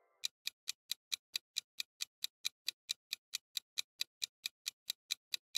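Countdown timer ticking, a clock-tick sound effect marking the guessing time: sharp, even ticks at about four and a half a second, starting about a quarter second in.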